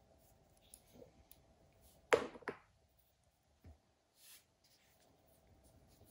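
Wera Tool-Check Plus tools and their plastic case being handled on a wooden floor: two sharp clacks close together about two seconds in, then a softer knock and a brief rustle.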